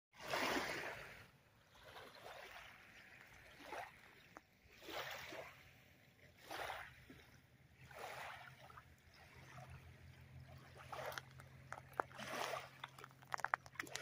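Small lake waves lapping on a sandy beach, each wash rising and falling in a soft hiss every second or two. A faint steady low hum comes in about a third of the way through, and crunching footsteps on the sand start near the end.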